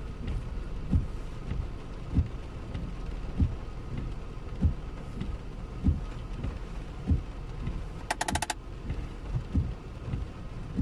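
Car windscreen wipers running on continuous in heavy rain, heard from inside the cabin: a low thump about every 1.2 seconds as the blades sweep, over a steady hiss of rain on the car. A brief burst of rapid clicks comes about eight seconds in.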